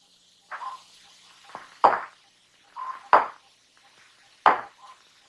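Footsteps knocking and clanking on a metal deck, with short electronic beeps from instrument consoles about every two seconds.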